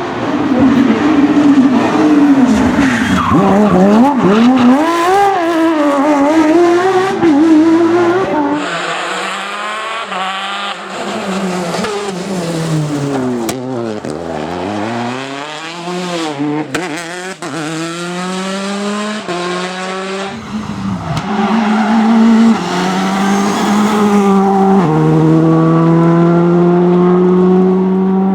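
Rally cars at full competition pace, engines revving up and down through gear changes as they brake and accelerate out of corners. Near the end an engine holds a steady high pitch under full throttle.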